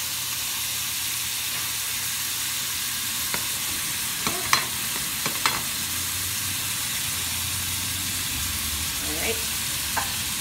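Raw ground beef sizzling and frying in hot bacon grease in a stainless steel pot as it is broken up by hand and dropped in. It is a steady hiss, with a few sharp clicks in the middle.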